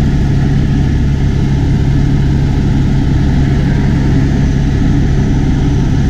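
Helicopter in flight: a loud, steady drone of engine and rotors with a strong low hum that holds unchanged throughout.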